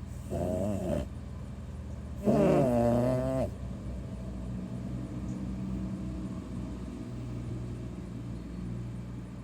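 A person making silly animal-like vocal noises: two short wavering cries, the second louder and longer, over a steady low hum.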